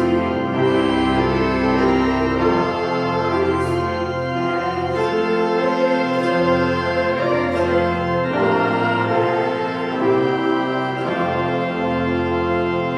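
Organ playing sustained chords over held bass notes, with a few faint sharp ticks along the way.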